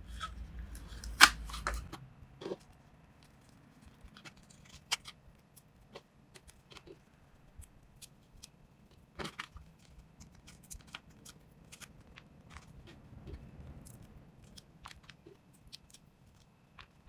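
Clear tape and paper handled by hand: scattered sharp crackles and clicks of tape peeling, crinkling and being pressed on. A louder snap comes about a second in and another just after nine seconds.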